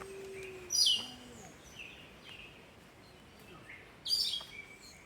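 Wild birds calling: two loud bursts of high, falling chirps, about a second in and again about four seconds in, with fainter calls between.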